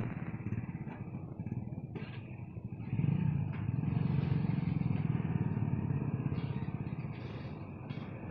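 Engines of waiting motorcycles and a small truck idling, a steady rapid low pulsing that grows louder about three seconds in.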